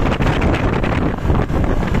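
Heavy wind buffeting the microphone over a steady low rumble of road traffic. No horn is sounding.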